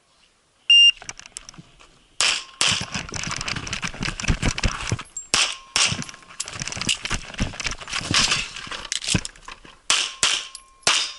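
A shot timer gives one short, loud beep about a second in. From about two seconds in, a 1911-style pistol loaded to IPSC Classic minor power factor fires strings of rapid shots, with short pauses between strings, as the shooter works through a practical-shooting stage.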